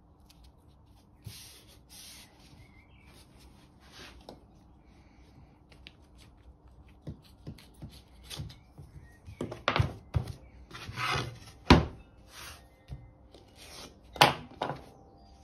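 Masking tape being pulled off the roll and rubbed down by hand onto an MDF panel, quiet scuffs at first, then a run of louder, sharper rips and knocks in the second half.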